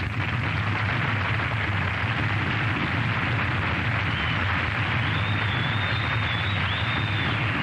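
Steady roaring rumble of an atomic bomb test blast, a dense noise with a heavy low rumble underneath. A faint, thin, wavering high whistle rides over it in the second half.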